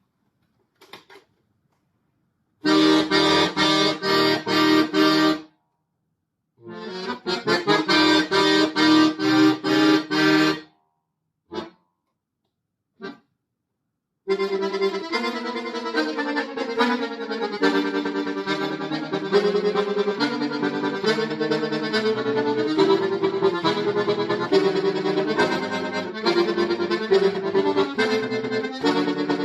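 Solo accordion playing a modern concert piece: two runs of rapid repeated chords broken by silences, two short stabs, then continuous fast playing from about halfway through.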